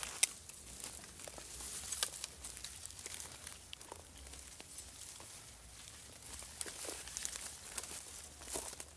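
Irregular rustling and tearing of dry foliage, with scattered sharp crackles.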